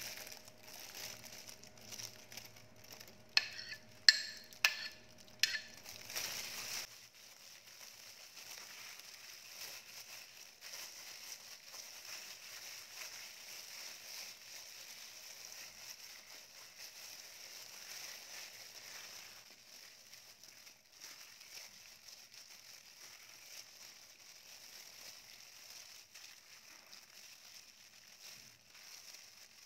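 Plastic disposable gloves crinkling and wet raw chicken squelching as hands rub seasoning into chicken drumsticks in a ceramic dish. A few sharp clinks come about three to six seconds in, then a faint, even rustling.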